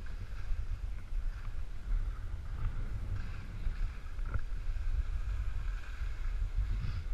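Skis scraping and hissing over the snow during downhill turns, with steady wind rumble on the microphone; a sharp knock about four seconds in.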